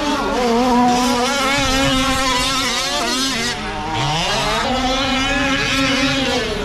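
Several gas-powered 1/5-scale RC trucks racing, their small two-stroke engines revving up and down over one another. About four seconds in, the pitch drops off and then climbs again as the trucks throttle back up.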